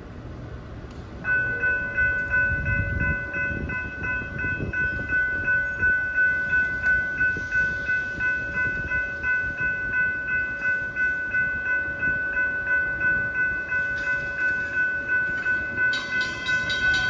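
Railroad grade-crossing warning bell switching on about a second in and ringing steadily at about two strokes a second, the sign that the crossing has activated for an approaching train. Near the end a second, sharper-toned bell joins in.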